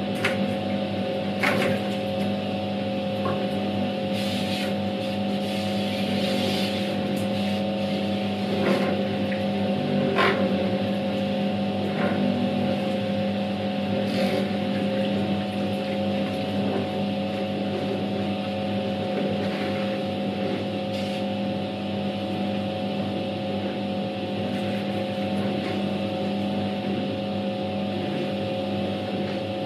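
Światowit M4 impeller washing machine running a wash: its EDA SED-110-4 capacitor-run motor hums steadily while the impeller churns the water and clothes in the tub. A few short knocks come in the first half.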